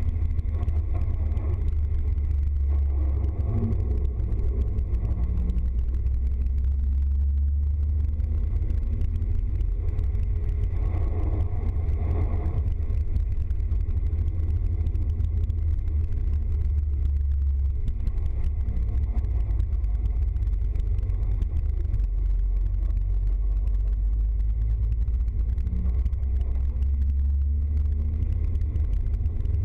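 Steady low rumble of a vehicle driving along a wet road, heard from inside the cab: engine and road noise.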